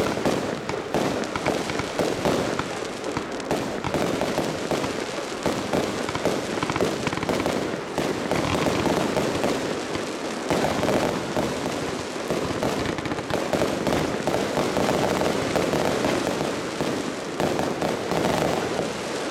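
Fireworks going off in a dense, continuous barrage of rapid bangs and crackles, starting suddenly.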